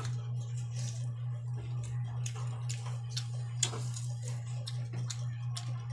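A person eating a meal of dried salted fish (tuyo) and string beans: chewing with many short, sharp clicks and crunches scattered through, over a steady low hum.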